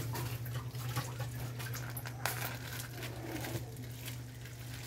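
A pan of crab, squash and long beans cooking on a gas stove: a faint sizzle over a steady low hum, with two light clicks. Near the end comes some rustling as coconut cream is squeezed from a cloth bag into the pan.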